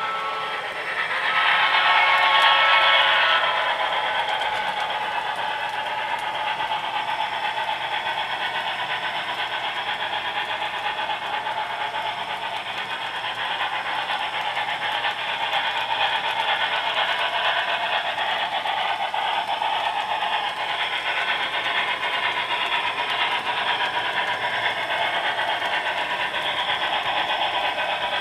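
HO-scale model train running on a layout: a brass Union Pacific Big Boy model pulling a long string of vintage metal and wood freight cars, giving a steady running rattle. It swells louder for about two seconds shortly after the start.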